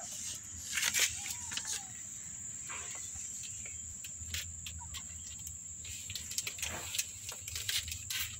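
Mother cat licking and grooming her nursing kittens: soft scattered clicks and rustles over a steady high-pitched whine.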